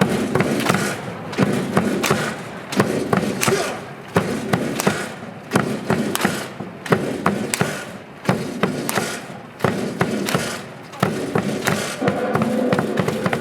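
Baseball stadium cheering section clapping in a steady rhythm, with chanting voices and cheer music, the claps coming in groups about every second and a half.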